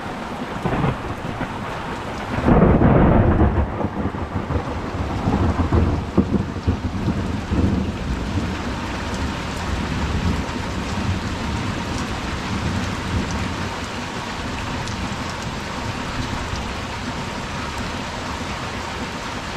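Steady rain falling, with a rumble of thunder that starts a couple of seconds in and rolls away over about five seconds.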